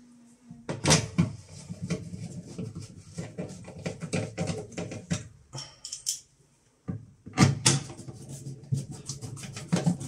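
Screws being tightened into the plastic frame of a washing machine door: rapid, irregular clicking over a low steady hum, in two runs with a short pause between them.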